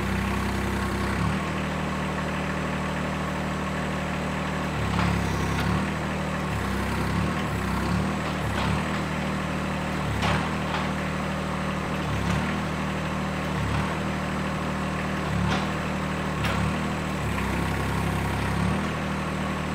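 John Deere 1025R compact tractor's three-cylinder diesel running steadily, its note dipping briefly every second or two as the loader grapple's hydraulics are worked, with faint clicks at some of the dips.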